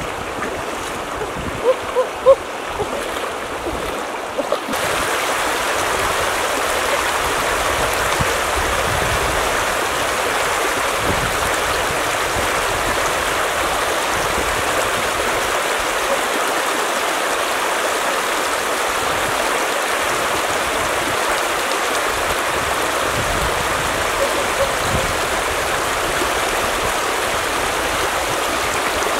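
Shallow river rushing steadily over rocks and rapids, growing louder and fuller about five seconds in. Near the start there are a few short, sharp high sounds about two seconds in.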